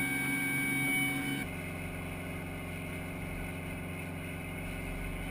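Steady engine and machinery hum of an M109 Paladin self-propelled howitzer running at rest. About one and a half seconds in it switches abruptly to a deeper, lower hum.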